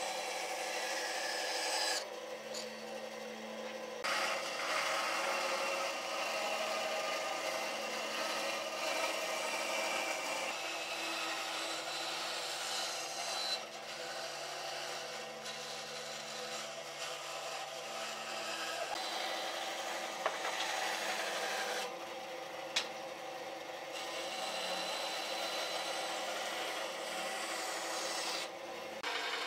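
Bandsaw cutting curves through a thick softwood board: the blade hisses steadily through the wood over the machine's low hum. The sound changes abruptly a few times, and there are two sharp ticks about two-thirds of the way through.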